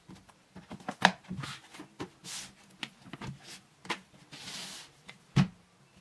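Books and a pen handled on a wooden tabletop: scattered taps and knocks with two brief sliding rustles, and two sharper knocks, about a second in and near the end.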